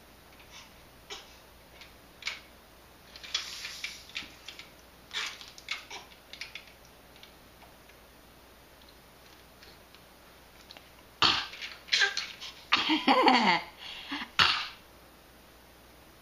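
Light scattered taps and clicks, then a run of coughs and throat-clearing sounds starting about eleven seconds in, part of a coughing game.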